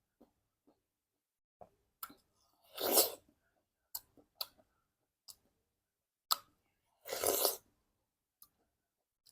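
Close-up eating of fruit: scattered small mouth clicks and chewing, with two longer, louder crunching bites about three and seven seconds in.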